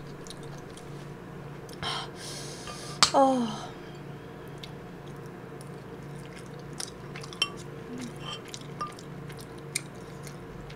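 A person eating kimchi stew with a spoon. About two seconds in there is a short slurp-like rush, then a brief falling murmur of the voice. After that comes quiet chewing, with small light clicks of the spoon near the end.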